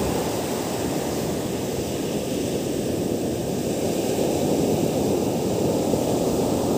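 Ocean surf breaking and washing up a sand beach: a steady rushing noise that swells a little in the second half.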